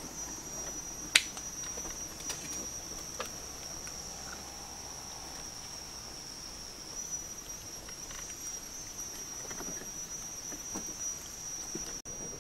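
Steady high-pitched insect chorus shrilling without a break, with a single sharp click about a second in and a few faint ticks.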